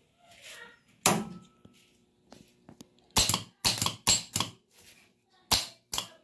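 Mazda 3 starter motor being bench-tested with jumper cables: a sharp snap about a second in, then a run of short, loud clacks from about three seconds in and two more near the end, as the jumper wire is touched to the solenoid terminal and the starter's solenoid kicks in.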